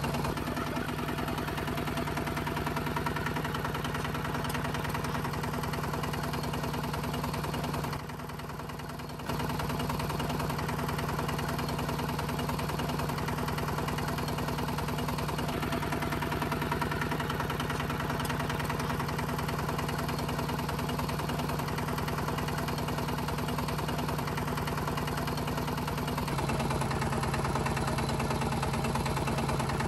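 Small motor of a DIY mini tractor running steadily with an even hum. It drops away briefly about eight seconds in, and about twenty-six seconds in it settles to a slightly lower, louder hum.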